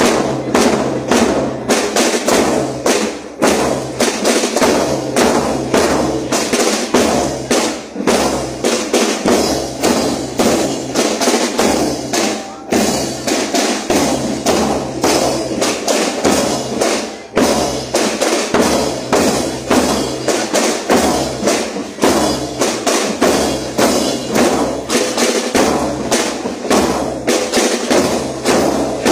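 A school marching drum corps playing a steady, rapid marching beat on bass drums and snare drums.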